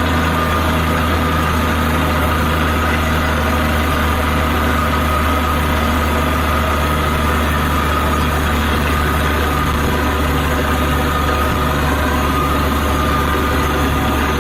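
Borewell drilling rig's engine running steadily: a constant deep drone with a steady whine above it, unchanging throughout.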